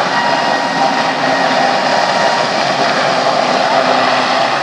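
Westland Sea King helicopter hovering: a steady, loud rush of rotor and twin-turbine noise with a faint steady whine through it.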